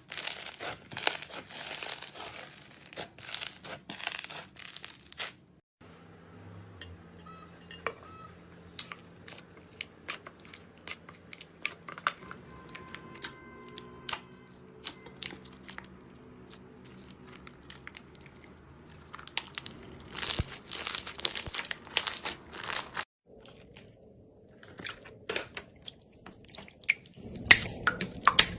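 Slime being squeezed and worked by hand, crackling and popping in quick dense clicks. The crackling is heavy at the start and again later on, with sparser clicks between, and it breaks off abruptly twice at edits.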